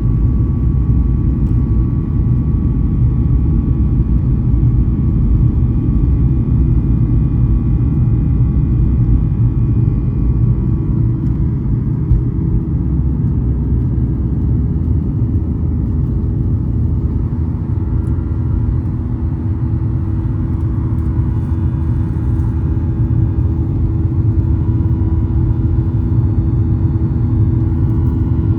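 Boeing 737 jet engine noise heard inside the passenger cabin: a loud, steady low rumble with faint steady whining tones above it.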